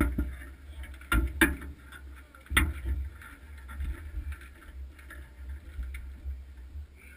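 Handling knocks and thumps on a stationary bobsled, four of them in the first three seconds, over a low wind rumble on the microphone.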